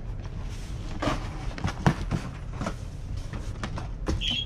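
Handling noise from cardboard and paperboard boxes: a hand rummaging in a cardboard shipping box, with scattered rustles and taps and one sharper knock about two seconds in.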